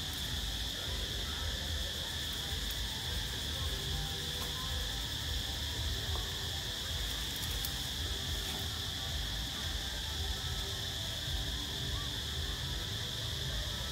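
Steady chorus of insects in the forest, a continuous high buzz, over a low rumble.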